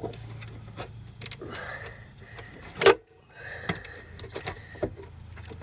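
Scattered clinks and knocks of metal parts and tools being worked in a car's engine bay, with one loud knock about three seconds in, over a low steady hum.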